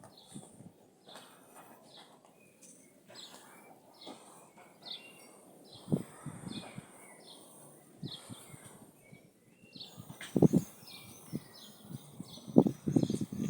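Short, high bird chirps repeated about twice a second, with a few low thumps about halfway through and near the end.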